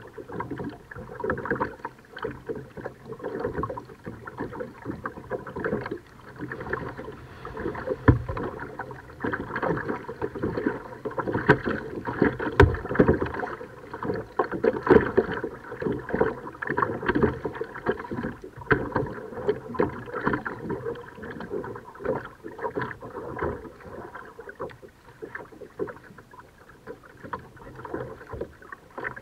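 Kayak being paddled: paddle strokes splashing in the water, with many irregular small knocks and clicks. It is louder in the middle stretch.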